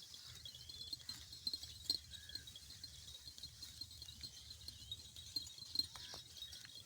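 Faint chirping of small birds, short high notes over and over, with scattered light clicks and knocks.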